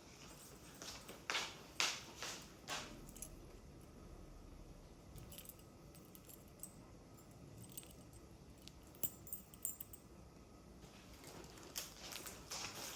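Small metal trinkets being handled: scattered light clicks and jingles in several clusters, with quieter stretches between.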